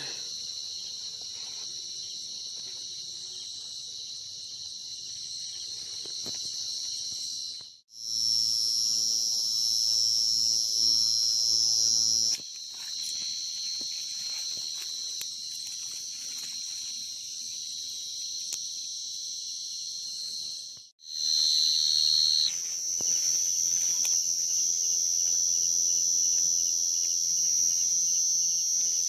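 Dense chorus of field crickets calling, a steady high-pitched trill. It drops out briefly twice, about 8 and 21 seconds in.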